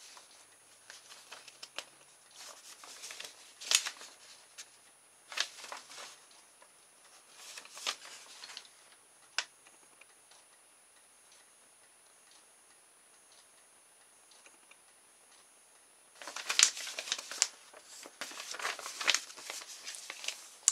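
Paper instruction booklet rustling as its pages are turned and folded back: several short bursts of paper noise with a sharp click among them, a quiet spell, then a longer, busier stretch of handling near the end.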